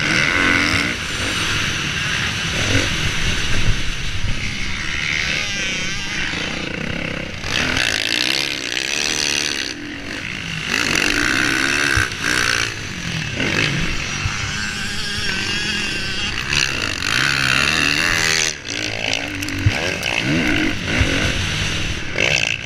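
Kawasaki KX450F's single-cylinder four-stroke engine revving up and down as the throttle is worked around a sandy motocross track, with brief drops where the throttle is shut, heard from a camera mounted on the bike along with wind on the microphone.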